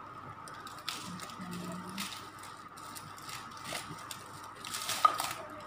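Plastic packaging around ceramic pots rustling and crinkling in short bursts as the pots are handled and unwrapped, with a sharper crackle about five seconds in. A faint steady high hum runs underneath.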